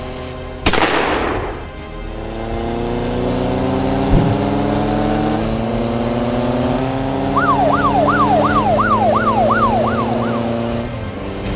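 Motorcycle engine sound effects, several engines running and slowly rising in pitch, after a sudden rush of noise just under a second in. A police siren sweeps quickly up and down, about three times a second, for about three seconds near the end.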